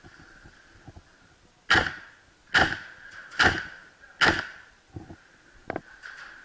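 Tokyo Marui M4 MWS gas-blowback airsoft rifle firing four single shots, a little under a second apart. Two fainter clicks follow near the end.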